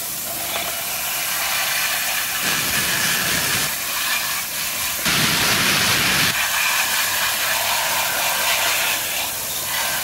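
Garden hose spray nozzle jetting water onto plastic toys in a plastic basket: a steady hiss of spray, louder for a spell just past halfway.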